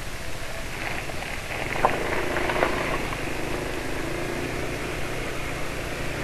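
Yamaha NMAX scooter's single-cylinder engine running steadily under way, mixed with wind and road noise.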